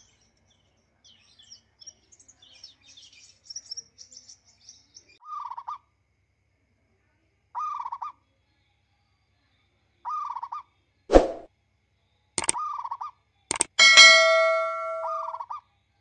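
Faint bird chirps, then a short call repeated about every two and a half seconds. Near the end come three sharp clicks and then a ringing bell ding that fades out: the sound effect of a subscribe-button animation.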